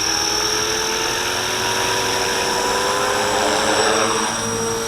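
Walkera V450D01 450-size collective-pitch RC helicopter hovering, its electric motor and rotor giving a steady high whine. The pitch climbs slowly and then dips near the end.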